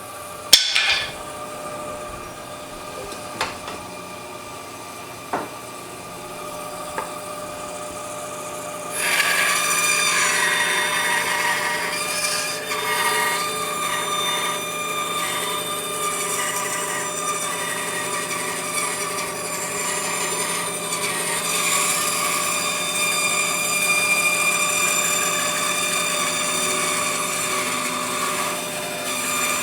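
Grizzly G0555X 14-inch bandsaw running, with a few sharp clicks in the first seconds. About nine seconds in the blade starts cutting wood, and the louder cutting noise carries on steadily over the motor hum.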